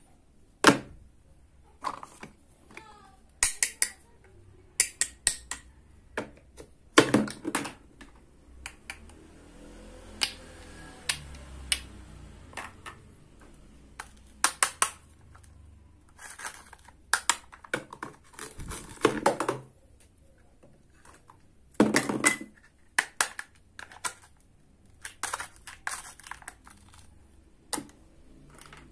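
Hard plastic toy fruit and toy kitchen pieces clicking and clacking as they are handled and set down, in irregular taps and quick clusters.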